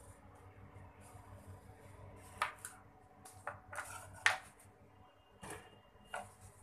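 Knife cutting okra on a plastic cutting board: scattered sharp knocks of the blade against the board, the loudest about four seconds in.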